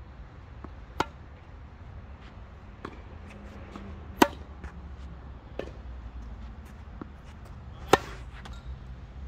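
Tennis rally in singles play: three sharp racket-on-ball hits about three and a half seconds apart, with fainter ball strikes in between.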